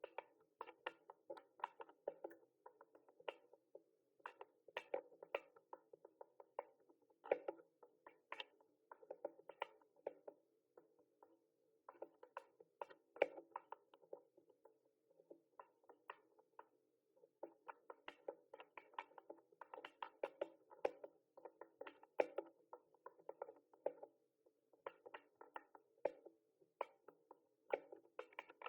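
Typing on a mechanical keyboard: quick, irregular runs of key clicks, with brief pauses about eleven and about sixteen seconds in.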